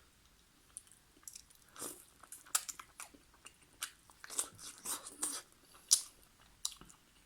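Close-miked mouth sounds of a person eating chicken karahi with naan: irregular chewing and biting with sharp wet clicks and small crunches, the loudest click about six seconds in.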